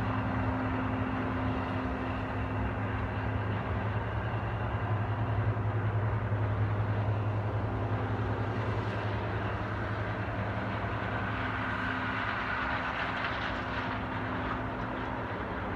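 John Deere combine running while harvesting corn: a steady machine drone with a strong low hum that holds level throughout.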